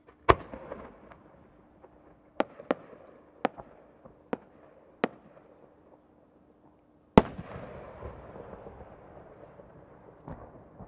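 A 12-inch aerial firework shell with rising effects. A sharp launch report comes just after the start, then five sharp cracks from the small rising-effect charges as it climbs. About seven seconds in comes the loudest bang, the main burst, followed by a long echoing rumble.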